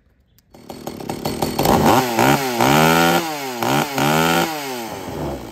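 Stihl 020 AV top-handle chainsaw's small two-stroke engine running and being revved up and down several times, then dropping back and fading near the end. Its owner says it runs well.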